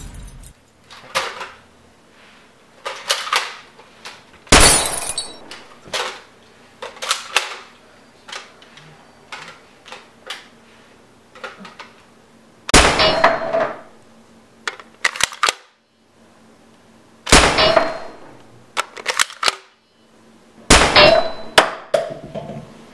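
Repeated sharp shots from a Nerf Maverick blaster, mixed with crashes and clangs of things in the house being hit and broken, several with a short ringing tone after the hit. Four much louder crashes stand out among many smaller hits.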